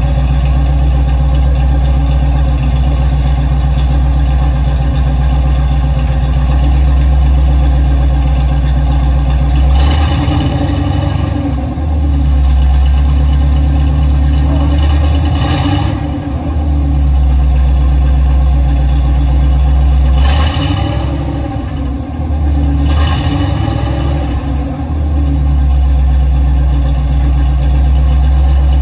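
Chevrolet K10's 350 small-block V8 running steadily, the truck lifted. Twice, for several seconds each (about ten seconds in and again about twenty seconds in), the engine note dips and wavers with short hisses as it takes up load, while the transmission and transfer case are run through and the front wheel spins.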